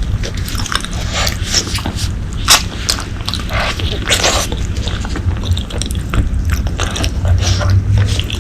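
Close-miked chewing and biting of braised pork leg: irregular wet mouth clicks and smacks, the sharpest click about two and a half seconds in, over a steady low hum.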